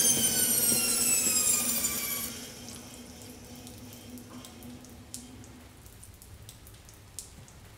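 Reich band saw winding down, its high whine falling steadily in pitch, then cutting off abruptly about two seconds in. A lower hum carries on and fades out about six seconds in, leaving only a few faint clicks.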